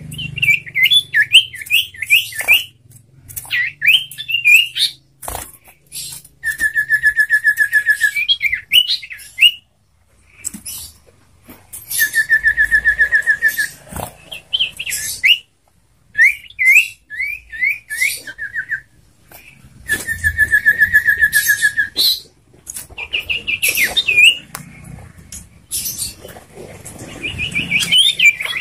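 A sirtu songbird singing loudly. Its song alternates runs of quick down-slurred whistles with long, even trills, three of them, and sharp chattering notes, and it is said to mix in imitated trucukan (sooty-headed bulbul) phrases.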